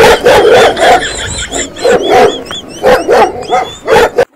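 Dog barking in a quick run of loud barks, with high rising-and-falling squeaks over them. It cuts off abruptly near the end.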